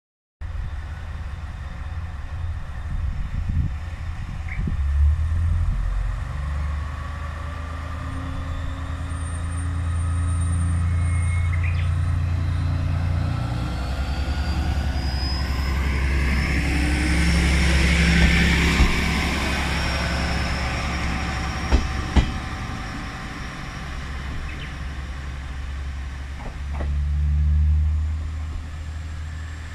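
A JR West diesel railcar pulling away from a station. Its diesel engine hums steadily, then works harder as the car gathers speed, with a whine rising in pitch. The sound is loudest as the car goes by, a few sharp clacks come about two-thirds of the way through, and then it fades as the railcar runs off.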